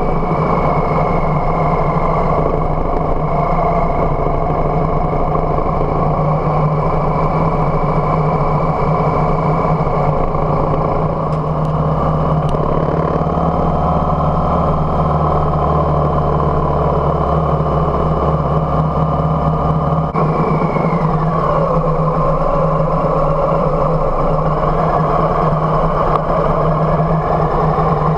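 Harley-Davidson Softail Heritage's V-twin engine running steadily on the road, heard from the bike. Its note drops about twenty seconds in.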